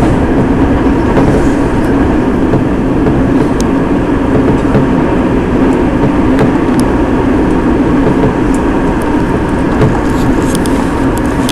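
Nankai electric train running, heard from inside the carriage: a steady rumble of wheels on the rails, with a few faint light ticks.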